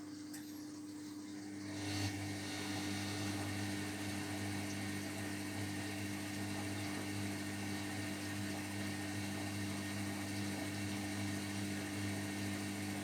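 Zerowatt/Hoover Performa 1000 washing machine in its cooldown phase: a motor starts about two seconds in and runs with a steady hum and mechanical whir, then stops near the end.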